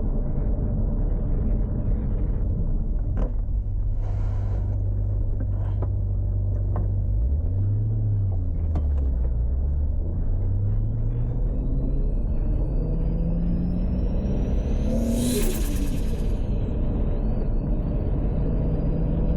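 Toyota Supra MK4's turbocharged 2JZ straight-six running at low revs, briefly dipping and rising near eight seconds, then climbing in revs with a rising turbo whistle. About fifteen seconds in a loud hiss of released boost cuts in as the throttle lifts, and the engine drops back to a steady low drone.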